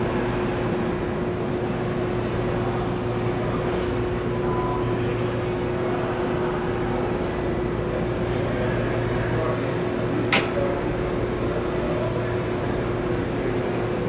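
Top-load washing machine with an impeller, its empty stainless drum spinning: a steady motor hum and rumble, with one sharp click about ten seconds in.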